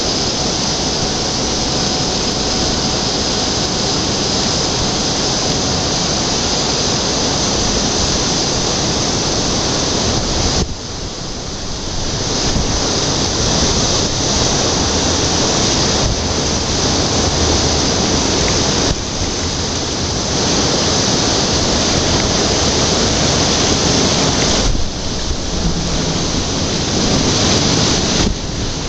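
Steady rushing of river water being sucked down into whirlpools over a navigation lock's submerged filling intakes as the lock chamber fills. The noise dips briefly three times.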